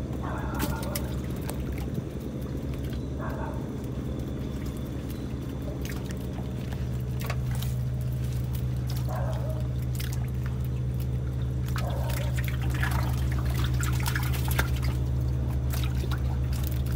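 Dripping and pouring water with small wet slaps and clicks as a catch of small fish and shrimp is sorted by hand on a wet board. A steady low motor hum runs underneath and grows slightly louder in the second half.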